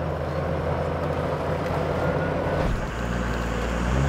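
Inside the cab of a Toyota Land Cruiser 60 Series on the road, its 12HT turbo-diesel engine drones steadily under way with tyre and road noise, and the engine note shifts about two-thirds of the way through. No gearbox whine is heard from the freshly rebuilt five-speed gearbox and transfer case, which the driver calls quiet as a mouse.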